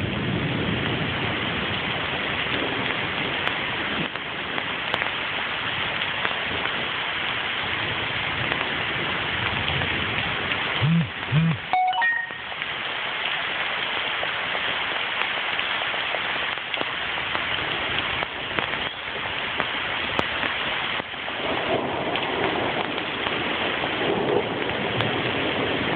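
Steady rain falling, an even dense hiss. About eleven to twelve seconds in it is broken by a few short, louder sounds.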